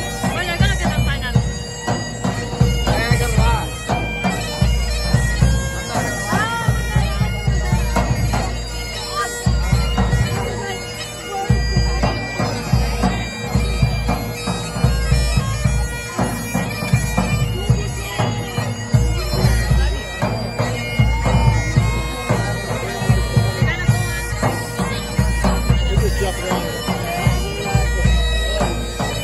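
Bagpipe music, a steady drone under a wavering chanter melody, over repeated low booms and bangs of aerial fireworks bursting.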